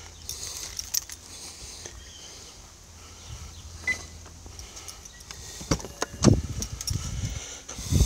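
Car keys jingling with handling clicks, then clicks and low thumps as the driver's door of a Mercedes S65 AMG is opened; the loudest thump comes a little after six seconds in.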